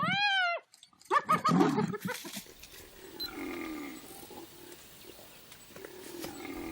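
An animal crying out: a high-pitched, drawn-out wail that rises and falls, then a harsh, noisy cry about a second in. After that, quieter low calls sit over a steady background hiss.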